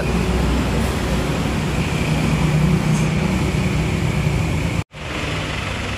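Steady low motor rumble with a faint hiss over it, cut off for an instant about five seconds in.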